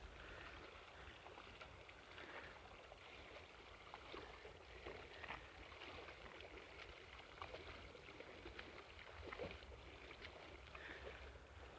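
Faint, irregular splashing of a double-bladed paddle dipping into calm water as a sit-in kayak glides past, over a low rumble of wind on the microphone.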